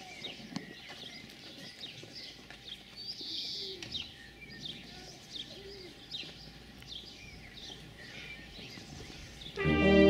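Small birds chirping and twittering outdoors, many short high calls throughout. Just before the end, a brass band starts playing, much louder.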